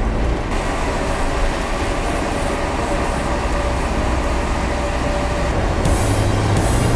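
Steady road and engine noise inside the cabin of a Honda N-VAN kei van driving along an open road.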